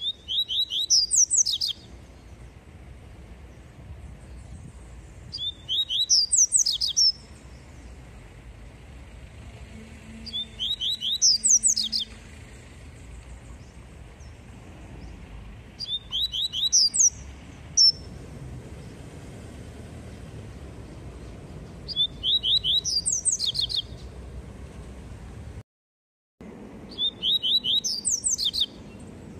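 Caged papa-capim seedeater singing its 'tui tui' song: six short phrases about five seconds apart. Each phrase is a quick run of high whistled notes that starts with a few rising slurs and climbs into rapid, higher notes.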